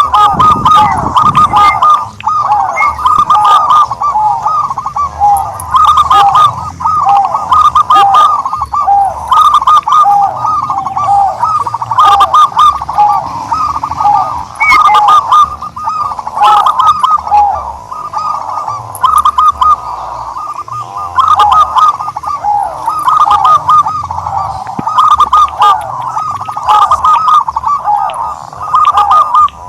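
Turtledove cooing, short arching notes repeated over and over with barely a pause.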